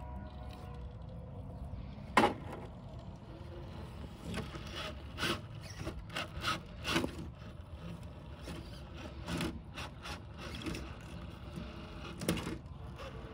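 Traxxas TRX-4 radio-controlled rock crawler working over rocks: irregular knocks, clicks and scrapes of its tyres and chassis against the stones, with a faint mechanical whir underneath. The sharpest knock comes about two seconds in, another near the end.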